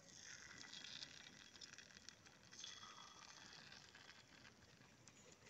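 Faint sizzling and crackling of ragi batter frying in hot oil in a miniature paniyaram pan, swelling as spoonfuls of batter go into the wells, in the first second and again around three seconds in.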